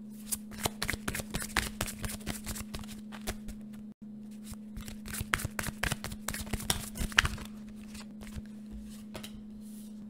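Tarot deck being shuffled by hand: a quick patter of card clicks and riffles, pausing about four seconds in and thinning out over the last couple of seconds.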